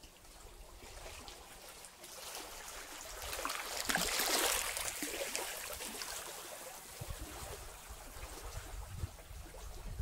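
Small sea waves lapping against and washing over low shoreline reef rocks, with crackling and trickling as the water spills and drains between them. One wash builds to its loudest about four seconds in and then slowly ebbs.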